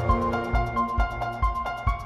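Background music with a steady beat of about two kick-drum hits a second and a repeating higher melody over held notes; the deep bass thins out for most of the stretch.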